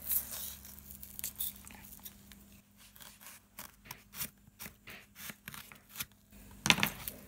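Kitchen knife slicing a red new onion on a plastic cutting board: a run of short crisp cuts, each ending in a light tap on the board, with a louder thump near the end.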